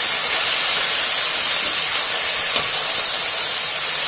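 Diced potatoes, peas and chopped tomatoes sizzling steadily in hot oil in an iron kadhai as they roast.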